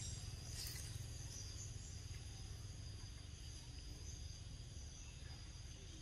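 Steady chorus of insects, several high-pitched shrill tones held without a break, over a low steady rumble.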